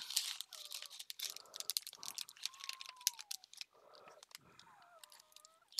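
Clear plastic packets of craft embellishments crinkling and rustling as they are handled and slid into paper pockets, busiest in the first two seconds and then more scattered.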